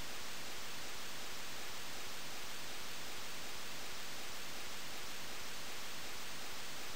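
Steady, even hiss of recording noise with no other sound.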